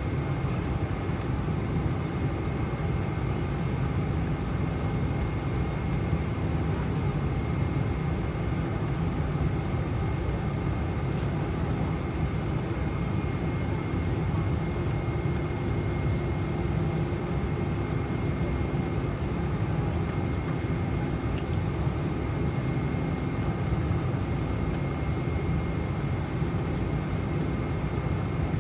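Steady cabin noise of a Boeing 747-400 taxiing, heard from a seat over the wing: an even engine rumble with a thin steady whine.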